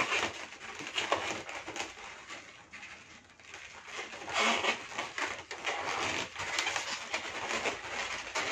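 Latex twisting balloons rubbing and squeaking against each other in the hands, in irregular bursts, as a long 160 modelling balloon is wrapped and tied around the dragonfly's neck.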